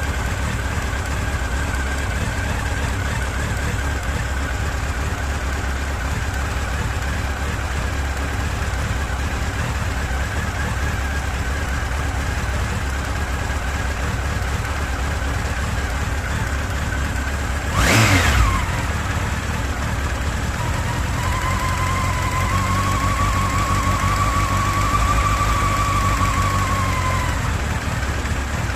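Honda X4's inline-four engine idling steadily, with the knock from the left side of the engine that only shows once it has warmed up; the owner suspects the cam chain, the valve clearances or the oil pump chain. About 18 seconds in comes a brief loud whoosh, and later a faint whine rises and falls for several seconds.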